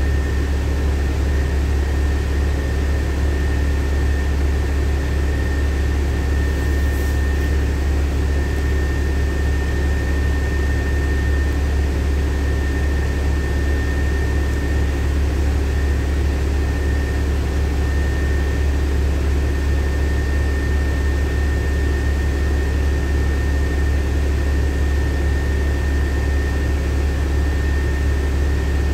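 LiAZ-5292.65 city bus running, heard from inside the passenger cabin: a steady low engine drone with a thin, steady high whine over it.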